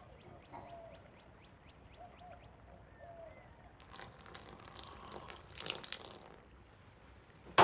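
Birds chirping in rapid short falling notes with a few lower calls, then a couple of seconds of splashing water, and a single sharp knock at the very end.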